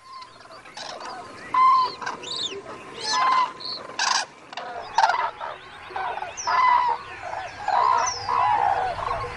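A flock of cranes calling: many loud, overlapping trumpeting calls, with higher, sweeping chirps mixed in.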